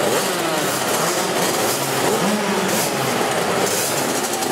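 Several small youth motocross bikes' engines running together, idling and blipping the throttle, their pitches rising and falling over one another.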